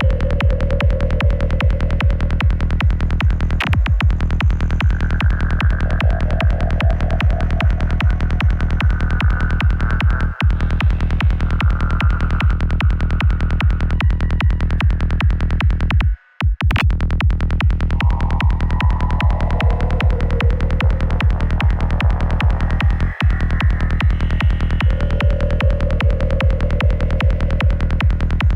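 Forest psytrance playing: a fast, steady kick and rolling bassline, with warped, shifting effect sounds drifting over them. The music cuts out for about half a second around sixteen seconds in.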